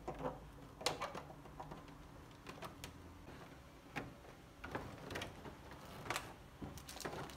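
Clear plastic packaging crinkling and rustling as it is handled and pulled off a statue, with scattered sharp crackles about once or twice a second.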